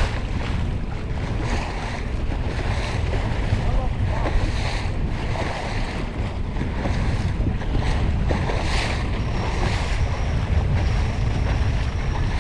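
Wind buffeting the microphone, with water washing along the hull of a small fishing boat trolling. A steady low rumble runs underneath, and the noise swells and eases in gusts.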